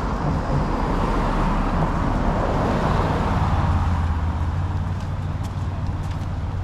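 Car road noise: a broad rush that swells over the first few seconds, then settles into a steady low engine hum.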